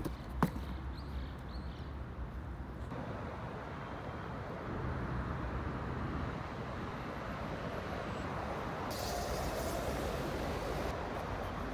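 Steady outdoor street background noise while walking with the camera, with a sharp click about half a second in.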